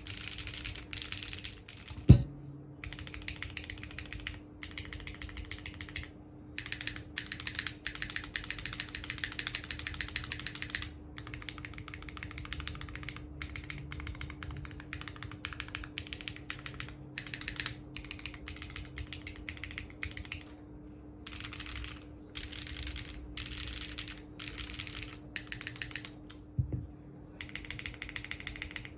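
Typing on a SINGAKBD Kohaku R2 custom keyboard with stock HMX Xinhai switches, GMK Nord ABS keycaps and a carbon-fibre plate with no foam. Key presses come in quick bursts with short pauses and include the stabilized modifier keys. There is a single loud knock about two seconds in and a smaller one near the end.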